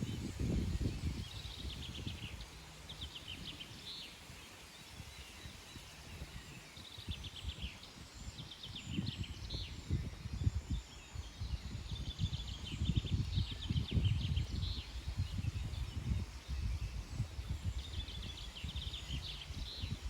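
Wind gusting over the microphone, a low rumble that swells and eases, with a bird singing short rapid trills every few seconds.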